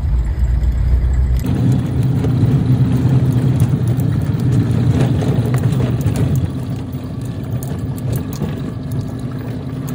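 Toyota Qualis engine and cabin noise heard from inside while it is driven over rough off-road ground, with short knocks and rattles from the body. The sound drops slightly about six and a half seconds in.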